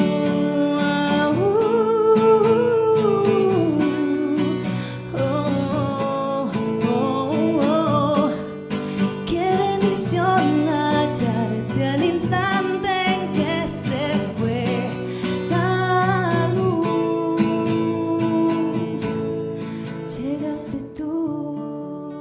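Song outro: a female voice sings a melody over acoustic guitar, with the music fading down near the end.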